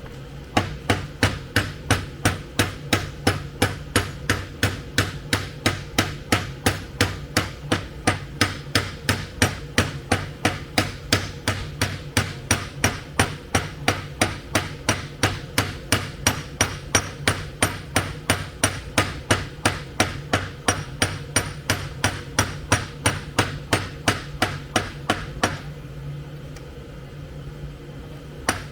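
Hammer blows on the heated end of a metal rod, beating it over into a head so the fitted part can't come off: a long steady run of sharp metallic strikes, about three a second. The blows stop about 25 seconds in and start again just before the end.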